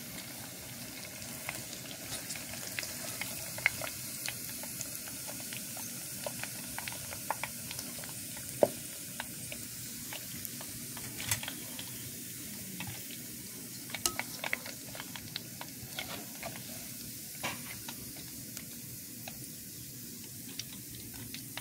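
Chunks of pork butt deep-frying in a pot of hot oil: a steady sizzle scattered with sharp pops and crackles, with a bamboo skimmer stirring through the oil and lifting pieces out.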